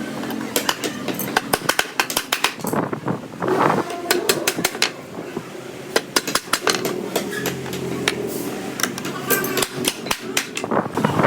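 Many sharp knocks and clicks in an irregular run over a steady low drone.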